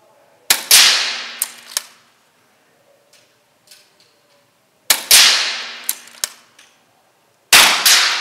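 Three shots from a .177 Daystate Pulsar PCP air rifle, about half a second, five seconds and seven and a half seconds in, each a sharp crack that rings out into a long echo in the indoor range.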